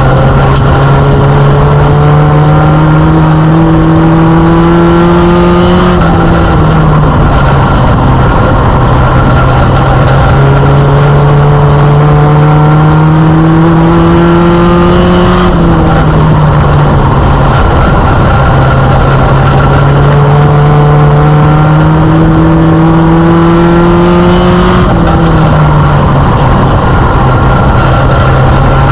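Mini stock race car's engine, loud from inside the cockpit, running hard and climbing slowly in pitch along each straight, then dropping sharply as the driver lifts for the turns, three times about every nine to ten seconds.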